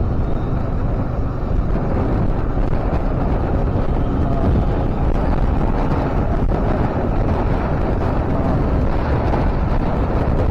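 Wind buffeting the microphone with steady road and vehicle noise underneath, as from riding along on the road.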